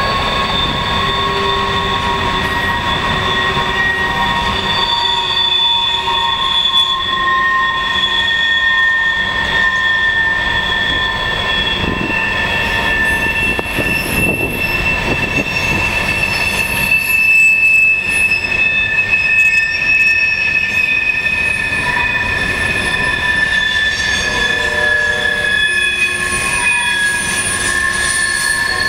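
Freight cars of a mixed freight train rolling past, their steel wheels squealing in several long, steady high tones that drift slightly in pitch, over the continuous rumble of wheels on rail.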